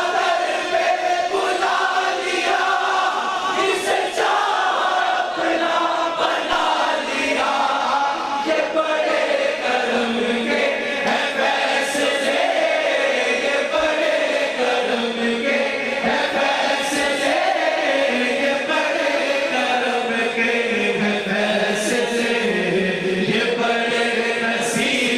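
A large crowd of men chanting and singing together in unison with a lead reciter, a devotional naat with the audience joining in.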